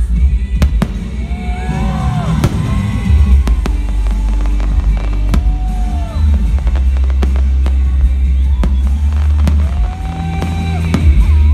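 Aerial firework shells bursting in quick succession, many sharp bangs and crackles, over loud music with heavy bass.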